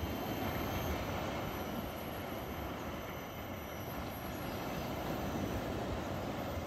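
Steady rushing noise of wind and shallow sea at the shoreline, with an uneven low rumble.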